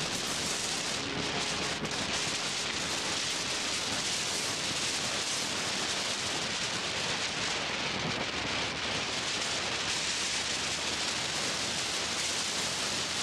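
Steady rushing wind noise on the microphone of a camera riding on a moving motorcycle.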